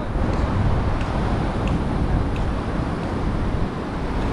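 Steady rushing noise of a river's white-water rapids pouring over rock, with a low rumble that rises and falls unevenly underneath.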